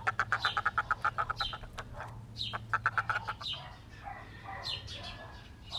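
Domestic backyard fowl calling in two fast runs of short calls, about ten a second, with scattered calls and high bird chirps after. A steady low hum sits under the first half.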